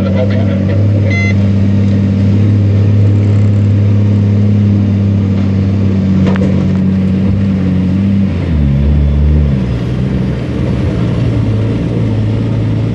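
Iveco truck's diesel engine running hard under load, pulling through deep sand at a steady pitch. About eight seconds in the engine note drops and changes, then settles at a new steady note.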